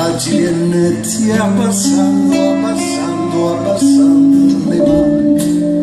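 Live band music: a man singing held notes over acoustic guitar accompaniment.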